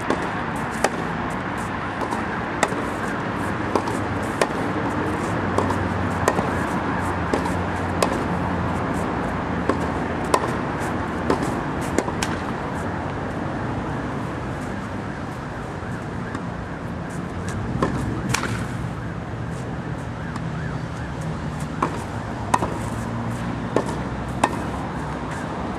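Tennis ball struck with a racket over and over in groundstrokes, short sharp pops roughly once a second, over a steady background hiss and rumble.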